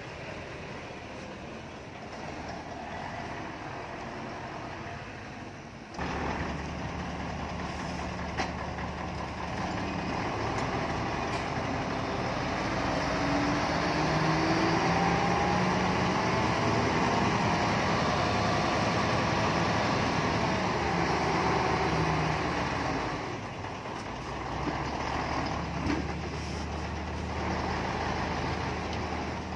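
Heavy diesel construction machinery running under load. About six seconds in it gets suddenly louder, and a whine rising then falling in pitch rides over the steady engine drone for about ten seconds before it eases off.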